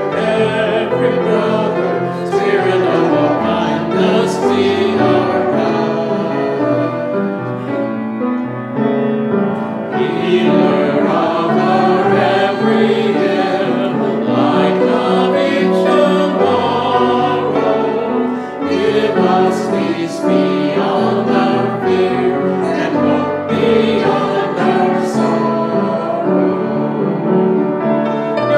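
A small group of voices singing a hymn together in unison, over steady instrumental accompaniment holding low notes.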